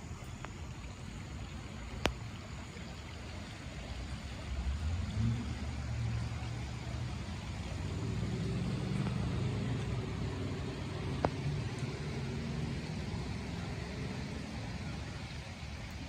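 Steady hiss of light rain falling on a pond, with a low engine rumble, as of a passing vehicle, building up about four seconds in and easing off near the end. Two sharp single clicks.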